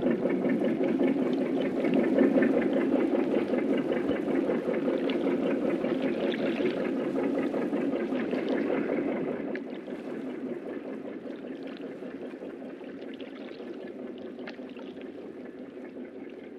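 Steady rushing and churning of sea water, which drops in level partway through and then fades away.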